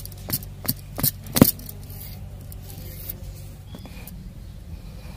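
A fresh bottle gourd being cut on a boti, a fixed upright curved blade: four crisp cutting strokes in the first second and a half, the last the loudest, then a couple of faint ticks. A low steady hum runs underneath.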